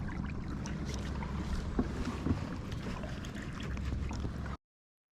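Steady low hum of an electric trolling motor on a kayak, with water noise and scattered light clicks. The sound cuts to dead silence about four and a half seconds in.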